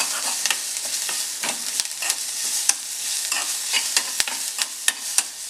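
Sliced onions, green chilli and whole black peppercorns sizzling in oil in a metal kadai while a metal spatula stirs and scrapes them, with frequent sharp clicks of metal on the pan over a steady hiss.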